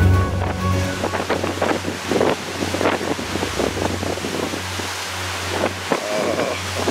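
Big ocean waves rushing and breaking against a cruise ship's hull, with strong wind buffeting the microphone.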